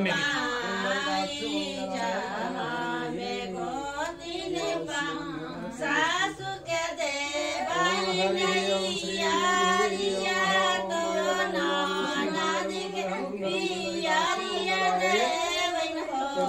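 Voices singing a devotional song together, the melody wavering up and down over a steady held tone.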